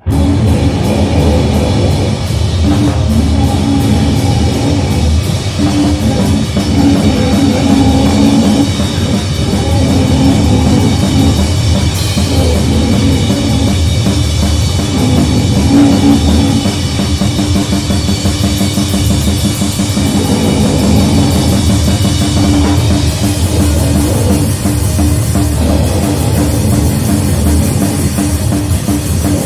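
Loud grindcore/crust-style heavy music, a dense wall of distorted sound over fast drumming with cymbals. It cuts in abruptly at the very start.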